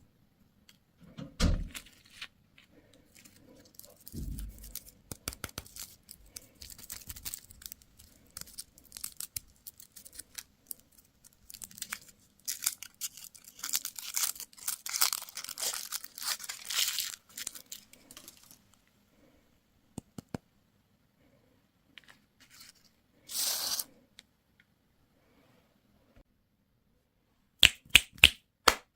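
Candy or toy packaging being torn open and crinkled, in crackly stretches on and off for much of the time. There are a couple of dull knocks in the first few seconds and a quick run of sharp clicks near the end.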